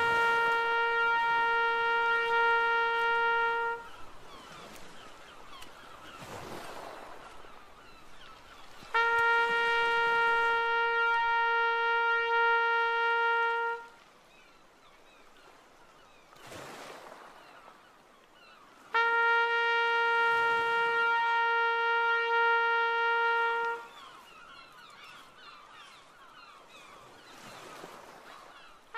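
Fog signal horn sounding three long, steady blasts of about five seconds each, one every ten seconds, with a faint outdoor background between the blasts.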